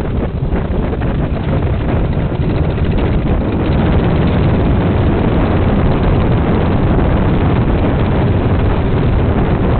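Dune buggy engine running as it drives over sand, heavily mixed with wind buffeting the microphone; it grows louder about three and a half seconds in.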